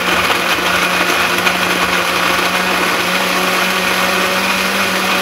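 Kitchen blender running steadily at one speed, blending chopped eggplant with orange juice, its motor holding a constant hum.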